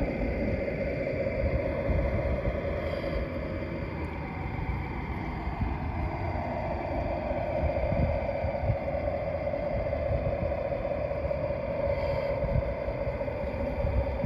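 Small electric motor of an RC model tugboat whining steadily, its pitch sagging and recovering about halfway through, over a low rumble.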